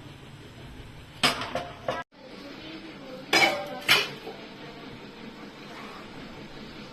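Metal kitchen utensils clattering against a cooking pot in several short clinks: two near the start and two more about halfway through.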